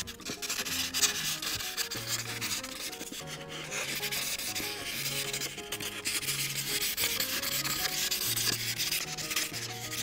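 Felt marker tip (Ohuhu marker) rubbing back and forth over coloring-book paper in quick, scratchy strokes while shading in a large area.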